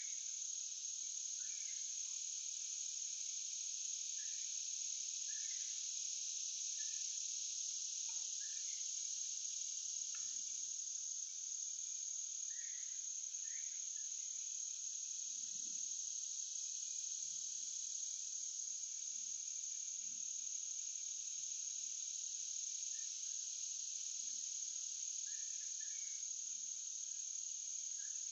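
Steady, unbroken high-pitched insect chorus of crickets and similar summer insects in woodland, with faint soft low knocks now and then.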